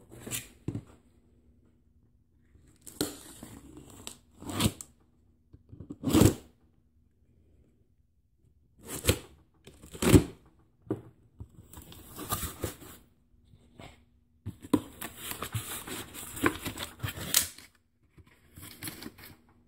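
Utility knife slicing through packing tape on a cardboard box and the cardboard flaps being pulled open: a string of separate short scrapes and rips, then a longer stretch of continuous rustling and tearing a few seconds before the end.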